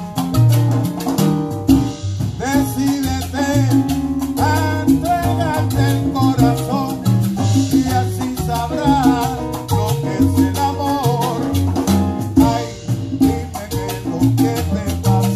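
A live salsa band playing, with a man singing a melodic line into a microphone over vibraphone, a steady bass line and conga and hand-percussion rhythm.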